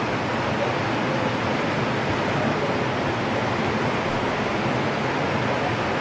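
Rough ocean surf washing ashore, a steady unbroken rush of noise.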